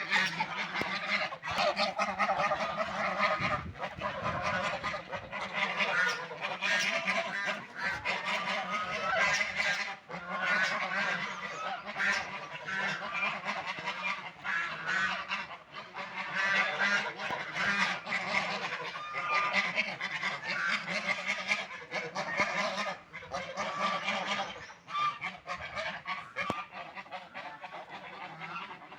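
A flock of domestic waterfowl calling almost without pause, with loud honking quacks overlapping one another throughout.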